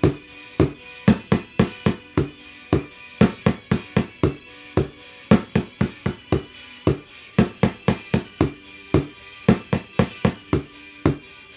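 Kitchen-utensil drumming: a metal ladle and a plastic spoon striking upturned plastic mixing bowls and a pot, quick strikes of about four a second in short repeating groups.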